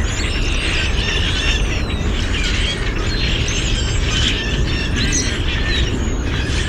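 A mixed flock of red-winged blackbirds, common grackles and brown-headed cowbirds calling all at once: a dense chorus of overlapping squeaks, whistles and chatter over a steady low rumble.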